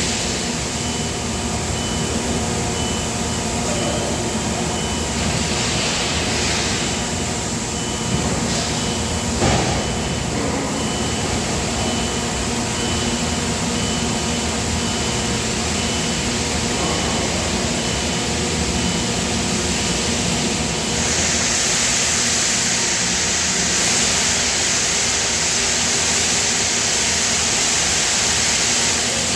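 Steady hum of factory machinery with a few steady tones running through it, and a single knock about ten seconds in. About two-thirds of the way through, a loud hiss sets in and holds.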